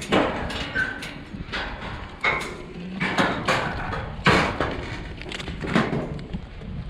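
A mob of sheep in the yards, with an irregular clatter of hooves and knocks, and a few short calls among them.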